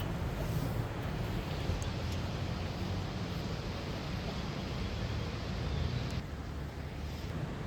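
Steady low outdoor rumble with some wind on the microphone; the higher hiss thins out about six seconds in.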